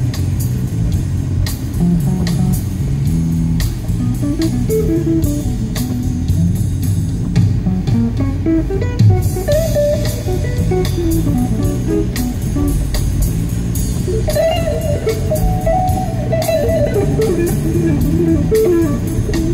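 Music: a plucked electric guitar melody over bass guitar and a light drum beat.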